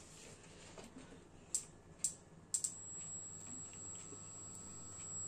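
Induction hob with a pot of butter melting on it: a few sharp clicks about half a second apart, then a faint, steady high-pitched whine that starts suddenly about two and a half seconds in and holds.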